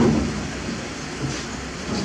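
Kobelco crawler crane's diesel engine running steadily, a low hum under a broad rumbling noise.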